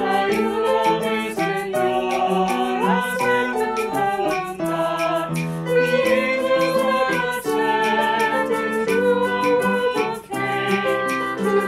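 A hymn sung by voices over instrumental accompaniment with a steady beat.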